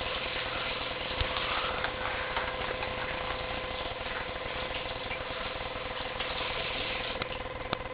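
Steady background hum and hiss with a few faint clicks.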